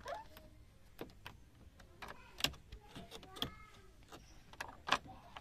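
A run of sharp, irregular plastic clicks from a 2003 Toyota Kijang LGX's dashboard controls being worked by hand: the power-mirror adjustment switch and then the air-vent louvres. A faint mirror motor whir comes in around the middle, and the loudest clicks fall about two and a half seconds in and at the very end.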